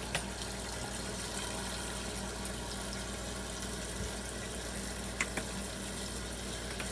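Kitchen sink faucet running steadily, filling the plugged sink with water for washing dishes, with a couple of light clicks about five seconds in.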